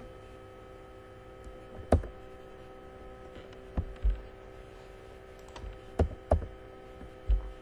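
Scattered keystrokes on a computer keyboard, about six separate taps with a dull thud, over a steady faint electrical hum.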